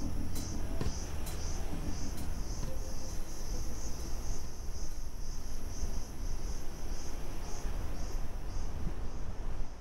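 Insects chirping in a steady pulse, about two pulses a second, over a low continuous rumble, with a few sharp clicks in the first two seconds.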